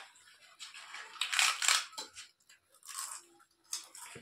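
Crisp fried papad being bitten and chewed close to the microphone: a run of dry crunches, loudest about a second in, with a few shorter crunches near the end.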